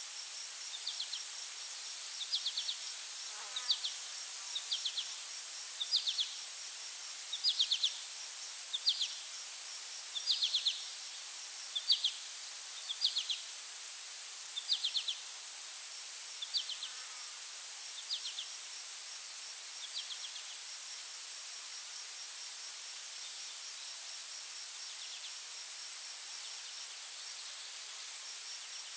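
Insect chorus: a steady high-pitched buzz and a pulsing trill. Over it, a repeated short chirping call sounds about once a second, then fades away about twenty seconds in.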